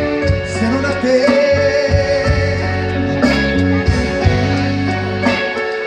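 A live band playing amplified music: a singer over electric guitar, bass and drums.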